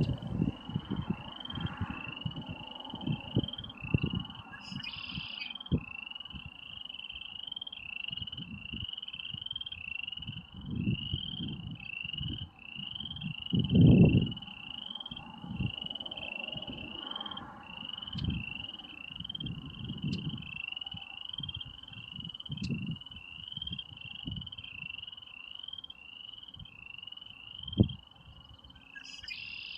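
Frogs calling in a steady chorus: a short rising creak repeated about twice a second. Wind rumbles on the microphone, with a strong gust about halfway through, and a bird gives a brief call twice.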